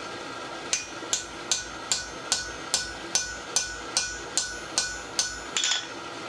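Hand hammer striking a hand-held punch driven into red-hot steel on an anvil to punch a hole through it: about twelve even blows, roughly two and a half a second, each with a short metallic ring. A short clatter near the end.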